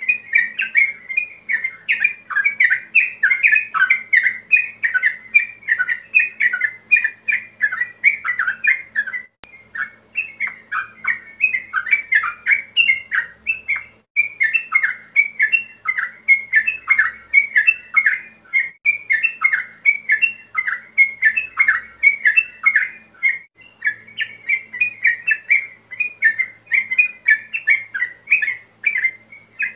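Yellow-vented bulbul singing a rapid, continuous run of bubbly chattering notes, the male's song to call rivals, with only brief breaks.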